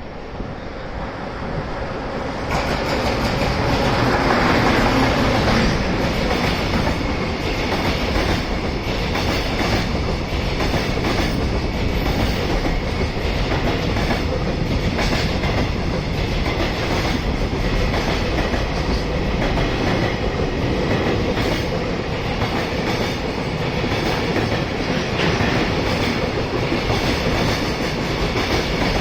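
A train running past on the rails, its wheels clattering over the rail joints; the noise rises sharply about two seconds in and stays loud and steady.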